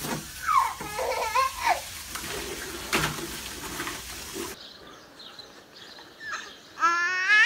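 Water splashing in a plastic kiddie pool as a German Shepherd steps into it, under a steady wash of water noise, with a small child's short vocal sounds early on. About two seconds before the end a baby starts laughing, a rising high-pitched squeal.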